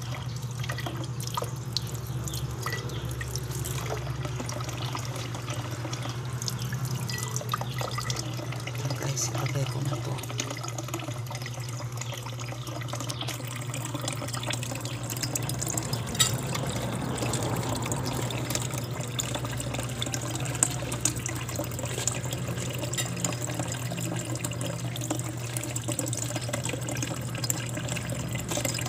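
Tap water running in a steady stream and splashing into a drinking glass, with a steady low hum underneath.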